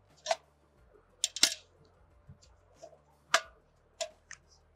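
About six sharp metallic clicks spread over a few seconds, the loudest about a second and a half in and three and a half seconds in: a small wrench and hands working the cable connectors and housings of clamp-on ultrasonic flow transducers.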